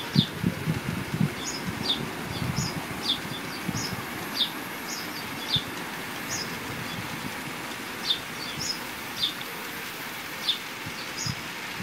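A garden bird calling in short, high chirps, roughly one a second, over a steady outdoor hiss. Beneath it is a low rumble, strongest in the first couple of seconds: an OO gauge model train running on garden track.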